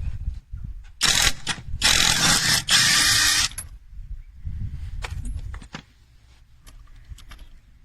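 Cordless impact wrench running in two loud bursts, a short one and then a longer one of about a second and a half, followed by a few scattered clicks and knocks.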